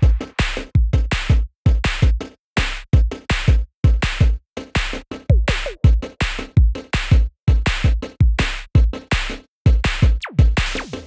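Background electronic music with a steady, fast drum-machine beat.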